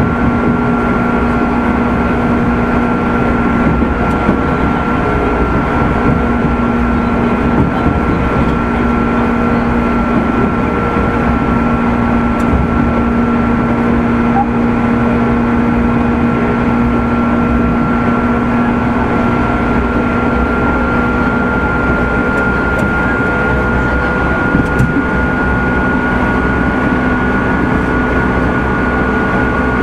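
Running sound of a JR 205 series 600 subseries electric motor car, fitted with externally fan-cooled traction motors, at a steady speed. A steady motor and gear whine, whose higher tone rises slightly in pitch in the second half, sits over the continuous rumble of wheels on rail.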